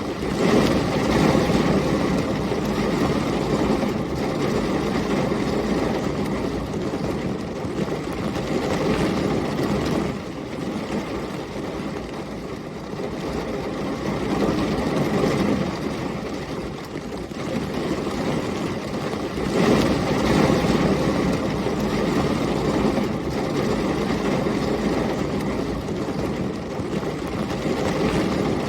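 Heavy rain and storm wind as a continuous dense rush, with a low rumble that swells and fades every few seconds, typical of rolling thunder or strong gusts.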